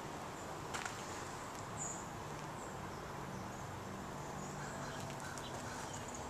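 Outdoor ambience: a steady background hiss, a sharp click a little under a second in, and a single short, high bird chirp about two seconds in.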